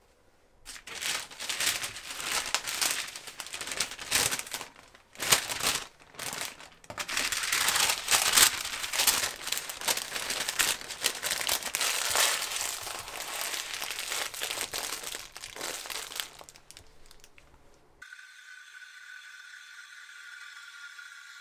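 Parchment paper crinkling in irregular bursts as it is folded and wrapped tightly around a sandwich. About 18 s in it cuts to the quieter, steady hiss of an espresso machine's steam wand frothing milk in a steel pitcher, with a thin whistling tone.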